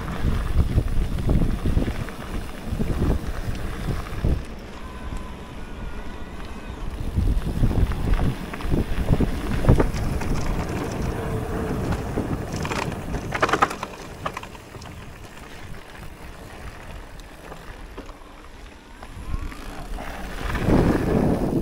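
Cube Stereo full-suspension mountain bike riding down a gravel trail: tyres rumbling over the dirt and stones, with knocks and rattles from the bike over bumps and wind buffeting the microphone. It runs louder and bumpier through the first half and again near the end, and smoother and quieter for a few seconds in between.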